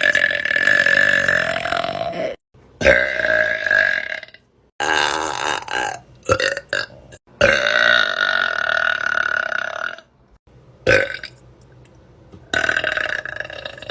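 A woman burping a string of long, loud burps, each held at a steady pitch. The longest last about two seconds, with a few short burps between them.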